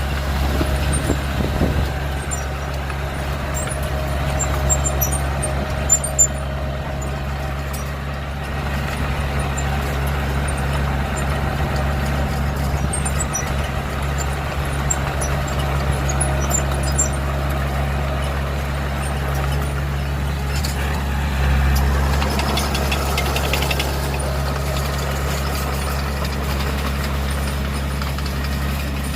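Heavy earthmoving-vehicle engine running steadily with a deep, even hum. There are a few sharp clicks about six seconds in and a brief rise in the engine sound a little over twenty seconds in.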